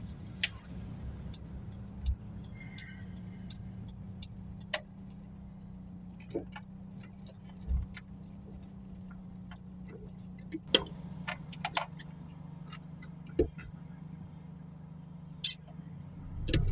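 A Ford Fiesta Mk2 XR2's carburetted 1.6-litre four-cylinder engine runs with a steady low drone, heard from inside the cabin. Scattered sharp clicks and knocks sound over it, a few of them louder about 11 to 13 seconds in.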